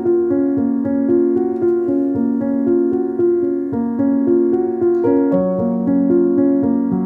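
Background piano music: a calm, flowing pattern of sustained notes, with a lower bass note coming in about five seconds in.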